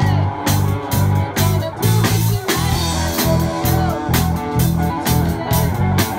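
Live amplified rock band playing: electric guitars and a drum kit over a low bass line, with a steady cymbal and drum beat about two to three strikes a second.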